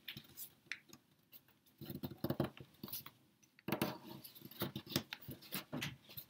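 A small folded sheet of origami paper rustling and crinkling in short, irregular bursts as it is opened and squash-folded by hand.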